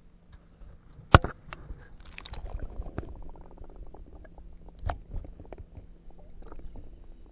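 Muffled water sounds heard with the action camera dipped underwater while a smallmouth bass is let back into the lake: water sloshing, with scattered clicks and sharp knocks. The loudest knock comes about a second in and another near five seconds.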